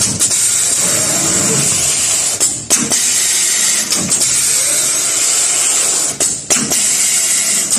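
A ZLD-A1 pneumatic spout pouch filling machine running while it fills pouches with liquid: a steady hiss with a few sharp clacks of its air cylinders and valves, spaced a second or more apart.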